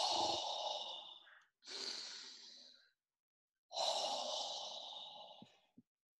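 A person taking slow, deep, audible breaths through the mouth to calm down: three breaths, a long one, a shorter one, then another long one.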